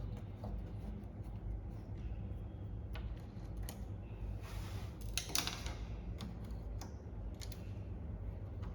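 Scattered light metallic clicks and a brief scrape of small metal parts being handled as an electric door lock is taken apart to get at its coil, over a steady low hum.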